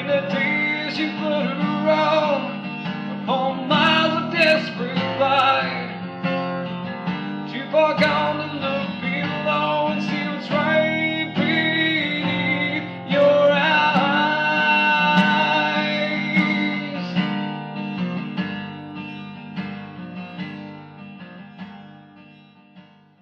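Acoustic guitar playing the closing bars of a rock song, the music fading out over the last several seconds.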